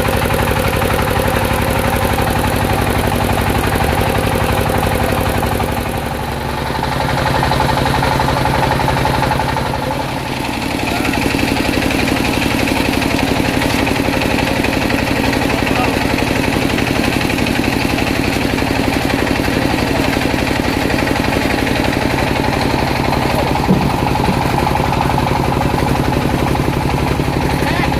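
Engine of a circular-saw sawmill rig running steadily, its level dipping briefly about six and ten seconds in, with a single sharp knock near the end.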